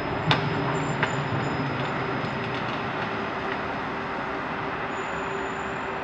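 Steady mechanical rumble of heavy machinery with a constant hum, and two sharp knocks in the first second or so.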